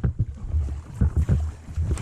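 Kayak on a river: wind rumbling on the microphone, with irregular knocks and water sounds from paddling.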